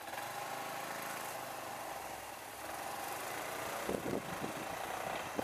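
Maxi-scooter engine revving and pulling away, its pitch rising over the first couple of seconds. Several short, loud low thumps come near the end.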